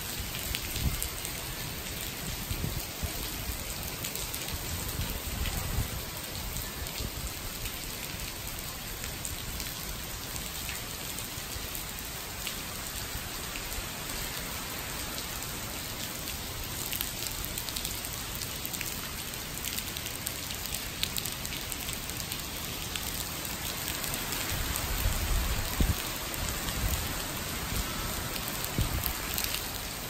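Heavy typhoon rain pouring steadily onto a flooded road, an even hiss throughout, with a few low rumbling swells, the strongest about 25 seconds in.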